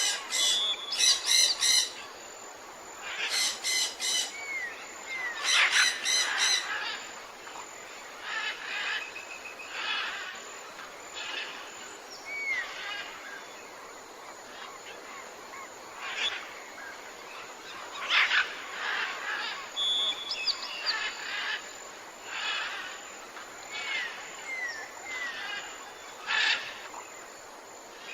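Several wild birds calling and chirping over a steady background hiss. There are bursts of loud, harsh repeated calls in the first few seconds and again later, with short whistled slurs in between.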